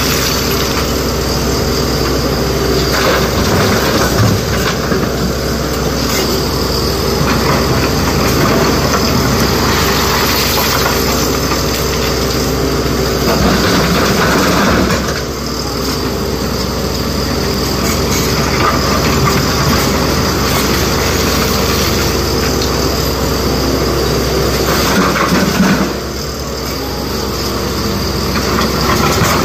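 SANY SY225 hydraulic excavator's diesel engine running steadily under working load, with bursts of rock scraping and clattering as the bucket digs blasted stone and tips it into a dump truck. The engine note eases briefly twice, about halfway through and again near the end.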